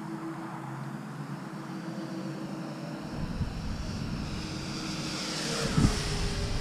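Electric RC Spitfire warbird's motor and propeller whine passing by: it grows louder over the last few seconds, then its pitch slides down as it goes past. Wind rumbles on the microphone, with a brief thump near the end.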